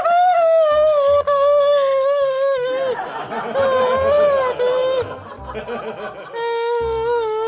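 Homemade balloon whistle, a pipe fitted with a balloon, blown in long wavering notes. A loud high tone sags slowly in pitch and breaks off about three seconds in. It returns briefly with a wobble, then sounds again lower near the end, over background music with a beat.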